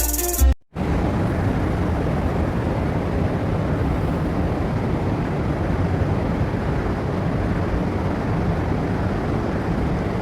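Intro music ends about half a second in and cuts out briefly, then a steady low rumbling noise.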